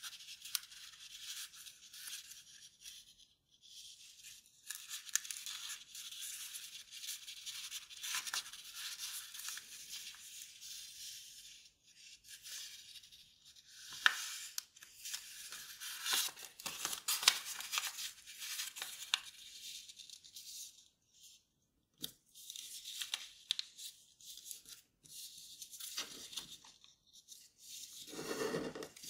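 Sheet of kraft paper rustling and crinkling as it is folded and its creases pressed down by hand, with sharp crackles, the loudest about halfway through.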